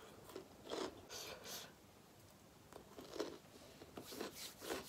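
Close-miked eating sounds: a string of short, soft chewing and biting sounds.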